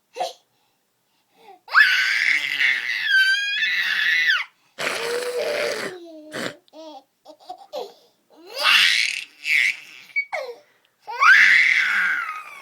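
Wordless high-pitched vocal squeals and silly noises from a person's voice, in about four loud bursts with the pitch sliding up and down, plus smaller sounds between them.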